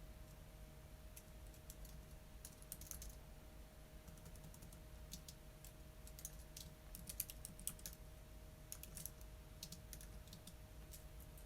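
Computer keyboard typing: soft, irregular key clicks in quick runs with short pauses, over a faint steady hum.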